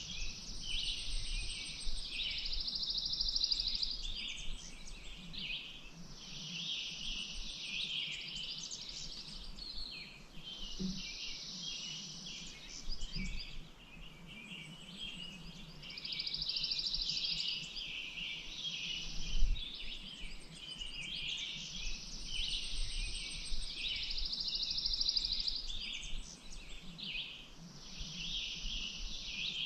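Several songbirds singing together, one of them repeating the same trilling phrase every few seconds. A brief low thump about 19 seconds in.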